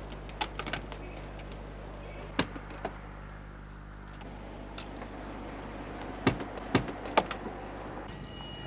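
Car doors being handled while bags are loaded into a sedan: several short clicks and knocks of the door and latch, the loudest three close together about six to seven seconds in, over a steady low hum.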